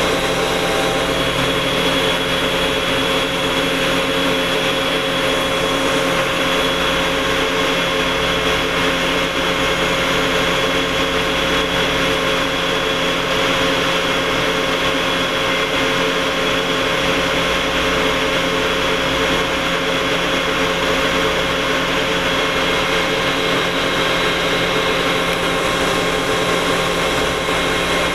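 Steady drone of an industrial air compressor running, with a constant whine over a broad hiss and rumble that doesn't change throughout.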